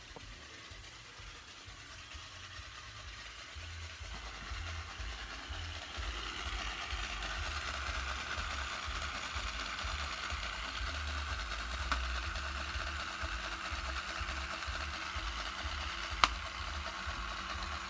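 Motor-driven LEGO model engine running, a steady plastic whirring clatter of its moving parts that grows louder over the first six seconds and then holds. A sharp click near the end is the loudest moment.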